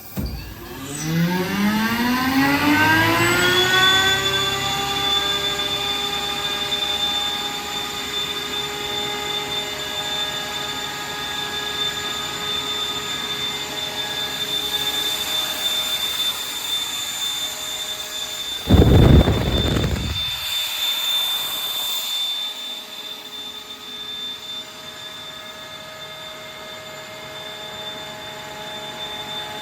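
GRASSAIR RLR 30V direct-drive 22 kW screw compressor starting up: its electric motor and air end run up with a whine rising in pitch over about four seconds, then settle into a steady running whine. About two-thirds in there is a loud low rumble lasting about a second, followed by a brief high hiss of air.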